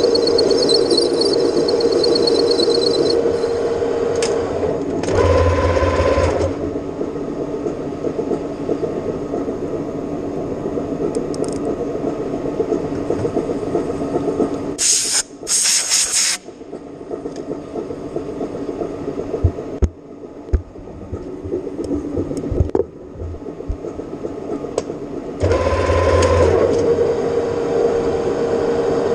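Metal lathe running while turning stainless steel, a steady machine hum with a few brief changes in its note. Two short loud hissing bursts come about halfway through, and a few knocks follow.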